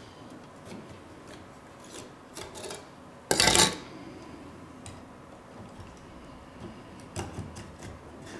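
Small metal tools and parts being picked up and handled on a table: scattered light clicks and clinks, with one loud scrape lasting about half a second a little over three seconds in and a short cluster of clicks near the end.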